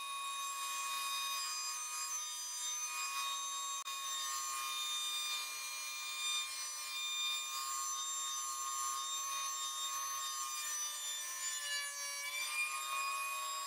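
Electric hand planer, mounted upside down as a benchtop jointer, running with a steady high whine while its cutterhead planes the edge of a wooden board. Near the end the whine sags in pitch for a moment as the motor takes the load of the cut, then recovers.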